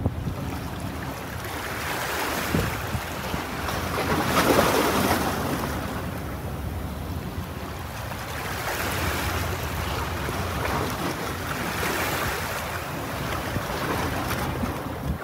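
Sea waves washing in and ebbing in slow swells every few seconds, with wind buffeting the microphone and a steady low rumble underneath.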